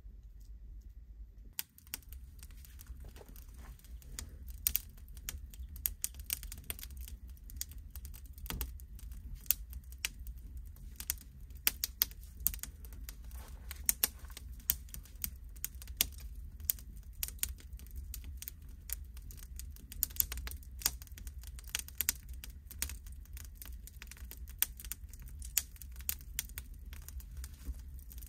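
Dense, irregular sharp crackles and clicks, several a second, over a steady low rumble; the clicking starts about two seconds in.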